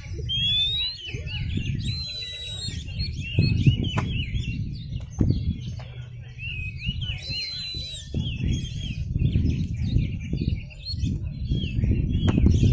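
Oriental magpie-robin singing a rapid, varied song of chirps and twitters, with a longer high whistle about two seconds in and another about seven seconds in. A steady low rumble runs underneath.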